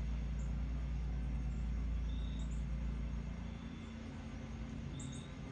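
Outdoor air-conditioning unit running with a steady low hum, easing a little about three and a half seconds in.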